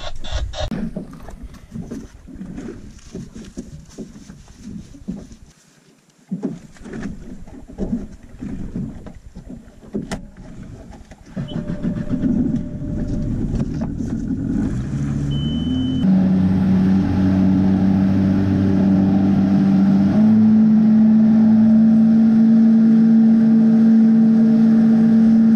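Boat engine speeding up from about halfway through as the boat gets under way, its pitch climbing in steps and then holding a steady note at running speed, with wind and water noise. Before that, scattered knocks and bumps.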